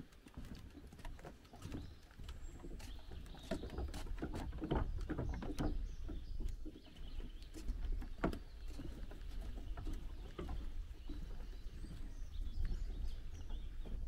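Footsteps thudding on wooden dock boards, about one a second, over a steady low rumble of wind on the microphone, with faint birdsong in the background.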